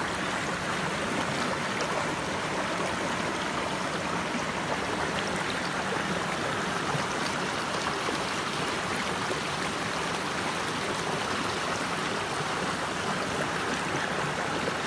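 River water running steadily over rocks: an even, unbroken noise.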